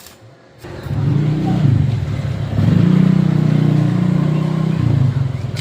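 A motor vehicle engine starting up about half a second in and revving, then holding a steady speed for a couple of seconds before easing off.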